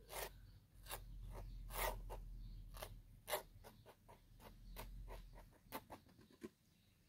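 Faint, irregular gritty clicks and scrapes of a fingertip pushing wet sand and pyrite grains across a plastic gold pan, with a low rumble underneath that stops about five seconds in.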